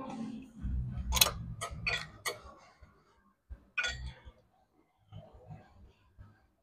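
Clicks and clinks of gym equipment being handled: four sharp clicks about a second in over low thumps, then one more clink near four seconds.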